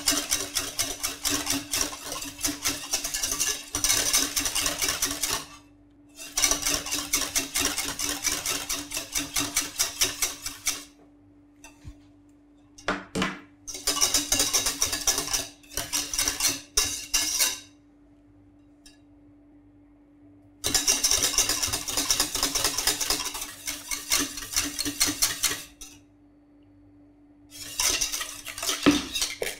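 Wire balloon whisk beating fast against the inside of a stainless steel saucepan in bursts of several seconds with short pauses between, over a steady low hum. The milk-and-cream ice-cream base is being whisked while it heats to 85 °C to pasteurise.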